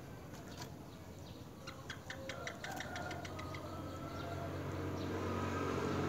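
Common mynas at a nest with nestlings: a quick run of short, dry clicking notes, about eight a second, lasting some two seconds, while a low steady hum rises and grows louder in the second half.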